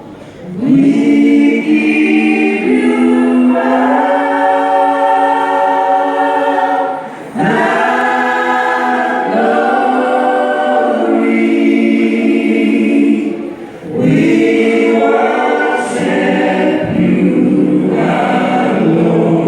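A group of voices singing in harmony, holding long chords in phrases, with two short breaks about a third and two thirds of the way through.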